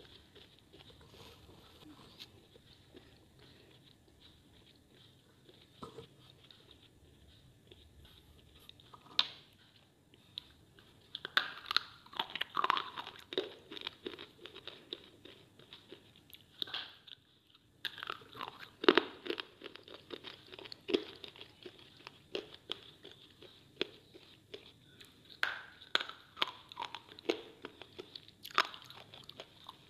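Pieces of slate bitten and chewed close to the microphone: sharp cracks as bits snap off between the teeth, followed by gritty crunching. It is faint for the first third, then comes in clusters of cracks and crunches with a short pause just past the middle.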